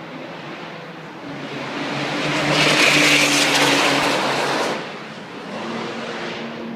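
Lamborghini Murciélago LP640's V12 engine at speed as the car passes on the track. It builds over about two seconds, is loudest a few seconds in, then falls away sharply in pitch and level as it goes by.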